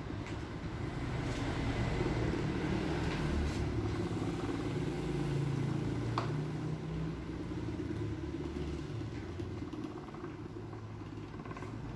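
Steady low rumbling background noise, swelling a little in the middle and easing near the end, with a few faint clicks.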